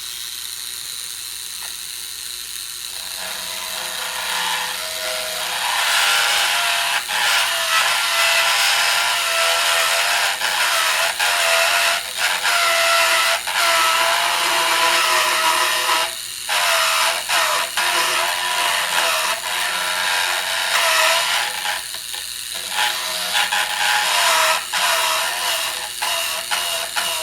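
Small power grinding tool, such as a rotary tool, grinding steel off the top of an AK magazine catch to open up clearance for the magazine. Its whine wavers in pitch as it loads and unloads against the metal. It grows louder a few seconds in and twice drops off briefly as it is lifted away.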